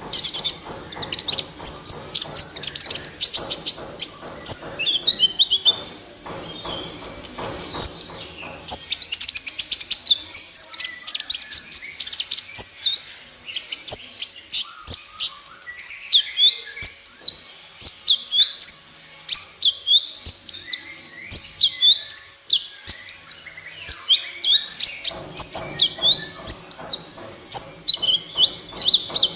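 Kolibri ninja sunbird singing in full voice: a fast, unbroken stream of short, high, mostly falling chirps and trills.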